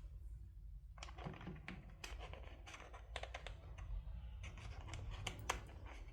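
Small plastic miniature toy pieces and packaging being handled, giving quick irregular clicks, taps and light rustling.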